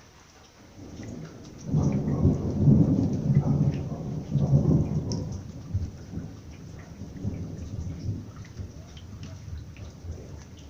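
Thunder rumbling during a thunderstorm: it builds about a second in, is loudest for a few seconds, then rolls away, over rain with scattered drops.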